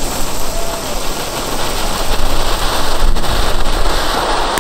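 Ground fountain firework spraying sparks with a steady, loud hiss that swells a little about halfway through.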